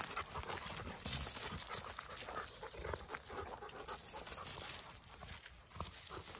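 Two dogs, a golden retriever and a long-haired tricolour dog, play-fighting: panting, with paws scuffling on gravel.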